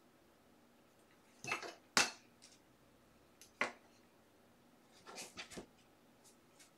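Rigid plastic card top-loaders being handled and set on display stands. A few short clicks and taps come in small clusters, the sharpest about two seconds in.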